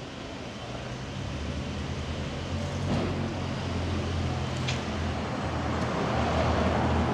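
Road traffic: a low vehicle engine rumble that builds steadily louder as a pickup truck drives past, with a couple of faint clicks.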